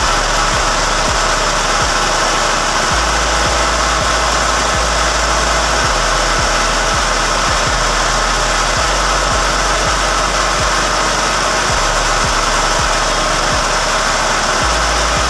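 Rice flour grinding machine running steadily and loudly, grinding rice into flour, with a constant whirring noise and faint irregular knocks.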